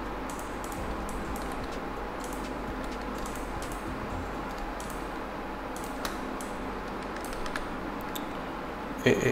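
A few faint, scattered clicks of a computer mouse and keyboard over a steady low hum and hiss, with a short louder burst near the end.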